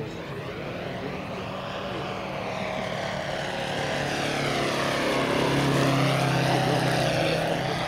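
Moki 250cc five-cylinder radial engine and large propeller of a 40%-scale Sukhoi Su-31 model aircraft flying past. The steady engine note grows louder as the plane comes closer, is loudest about six seconds in, then begins to fade.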